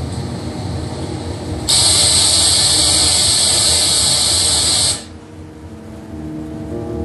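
Loud burst of TV-static hiss, used as a video-glitch transition effect, starting suddenly after a low rumbling noise and cutting off sharply about three seconds later.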